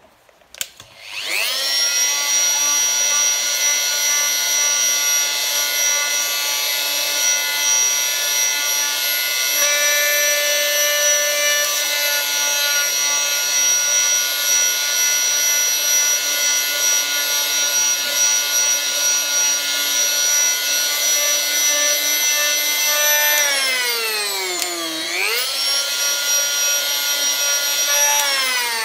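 Oscillating multi-tool with a fine-grit sanding pad switched on about a second in, then running with a steady high whine as it sands dried adhesive and plaster filler off a steel putty knife blade. About three-quarters of the way through, its pitch sags briefly and comes back up.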